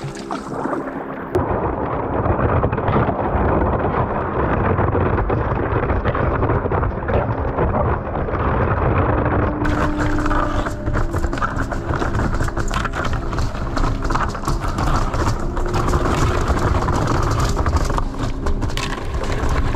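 Thin ice crackling and crunching without a break as a kayak's bow breaks a path through it, with many sharp cracks in the second half.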